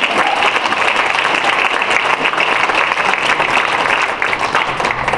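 Audience applauding: dense, continuous hand-clapping that starts to die away near the end.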